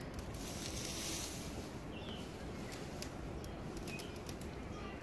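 Date palm sap boiling hard in a wide, shallow metal pan: a steady bubbling hiss with many small pops as the froth breaks.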